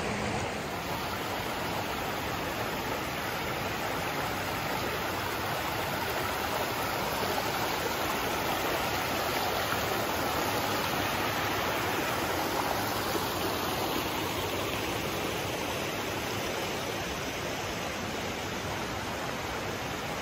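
Shallow river rushing over rock ledges and small rapids: a steady rush of water.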